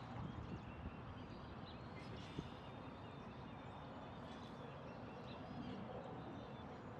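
Faint outdoor background: a steady low rumble with a few faint, short high bird chirps scattered through it.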